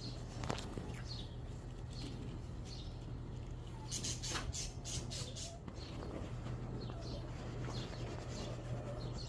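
Birds chirping in short, repeated, falling calls. A brief burst of crackling rustle comes about four to six seconds in, over a steady low hum.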